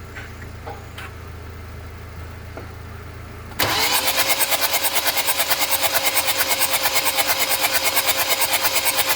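2014 Hyundai Santa Fe engine being cranked on its starter motor, beginning suddenly about three and a half seconds in as a loud, even pulsing of about eight beats a second that never catches into running. This is the no-start fault under test, which the mechanic puts down to an injector that may be clogged and not injecting. Before it, only a low steady hum with a few faint clicks.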